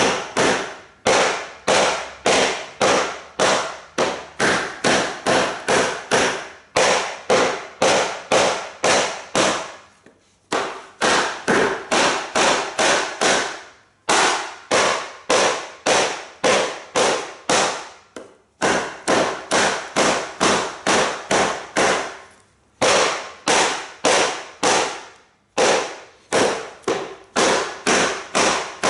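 A baton striking the spine of a Japanese nata hatchet over and over, driving the blade through wood: sharp blows at about two to three a second, in runs broken by brief pauses.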